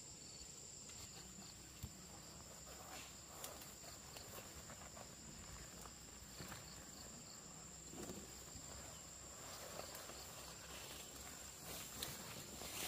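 Steady high-pitched insect call, a continuous cricket-like trill, with faint scattered rustles and knocks over it.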